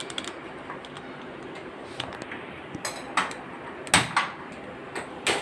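Sharp clicks and metal knocks, about half a dozen spread over five seconds with the loudest about four seconds in, as a gas stove burner is lit under a kadai and cookware is handled.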